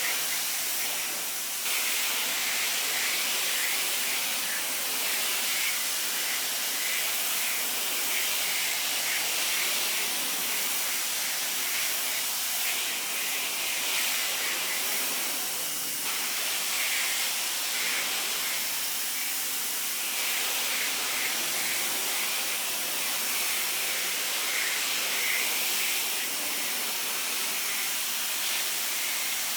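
Sun Joe SPX3000-QW2 electric pressure washer spraying: a steady high-pressure water jet hissing and spattering against a surface, its texture shifting a few times as the spray moves, with the faint hum of the electric motor-driven pump underneath.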